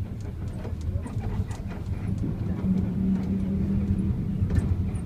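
A person snoring on a moving bus: one long, low snore about halfway through, over the bus's steady engine rumble and scattered rattles.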